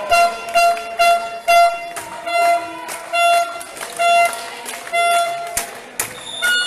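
A horn blown in about ten short blasts on one steady pitch, roughly two a second, stopping shortly before the end, with sharp knocks in between.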